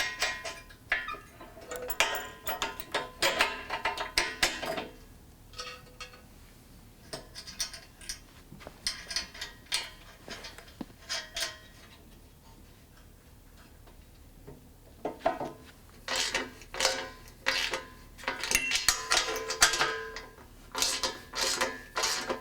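Ratchet wrench clicking in rapid runs of strokes, in several bursts, as a bolt on the tire-carrier handle hardware is tightened.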